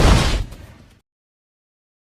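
The tail of a deep explosion-like rumble from a film destruction sound effect, fading out over the first second and cutting to dead silence.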